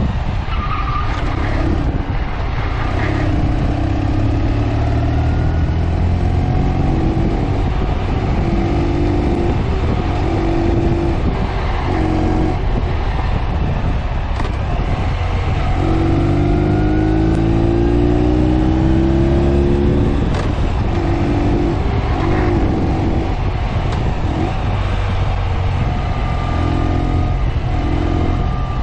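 Ural sidecar motorcycle's air-cooled flat-twin engine running on the move, its revs rising and falling repeatedly through the bends, over a steady rush of road and wind noise.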